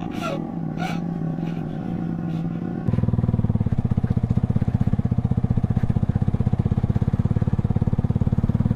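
Motorcycle engine running. About three seconds in it suddenly gets louder, with a fast, even pulsing that then holds steady.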